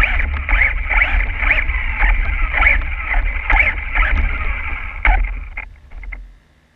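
Losi XXX-SCT RC short-course truck driving over slushy pavement, heard from a camera mounted on the truck. Its motor and drivetrain whine rises and falls with the throttle over a heavy low rumble of wind and tyre noise. The sound dies away about six seconds in as the truck stops.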